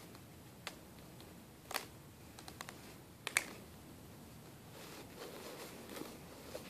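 Two polypropylene mini hula hoops clicking and tapping against each other as they are handled: a few separate sharp clicks, the loudest about three seconds in, followed by soft rustling as a hoop starts to spin.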